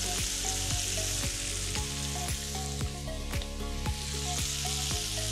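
Leeks and mushrooms sizzling steadily in rendered bacon fat in an enameled cast-iron pot, with soft background music underneath.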